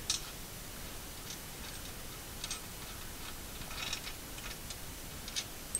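Faint, irregular light metallic clicks and ticks as the bolt holding the upper end of a shop crane's hydraulic ram is worked loose by hand.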